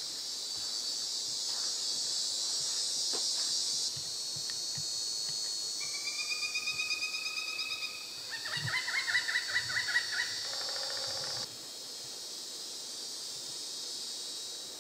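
A steady high-pitched drone under a series of repeated animal calls that start about six seconds in. The calls turn into a faster, louder run of chattering notes about halfway through, then a few lower notes before they stop.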